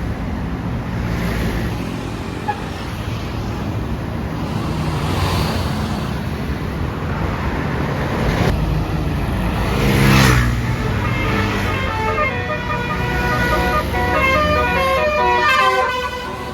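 Bus engine and traffic noise, then from about eleven seconds a basuri telolet bus horn playing a quick tune of short notes that step up and down in pitch.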